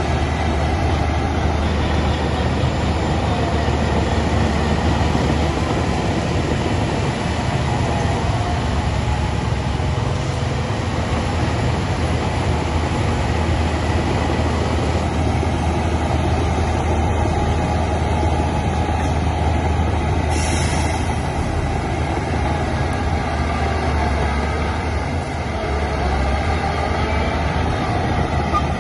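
Heavy earthmoving machinery, a bulldozer and dump trucks, running continuously with a steady deep diesel engine drone. A brief high hiss comes about twenty seconds in.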